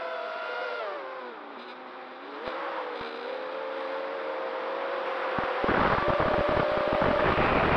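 Quadcopter's electric motors and propellers whining, the pitch sliding down about a second in as the throttle drops and climbing back a second or so later. From a little past halfway, heavy wind buffeting on the onboard microphone joins the whine and it gets louder.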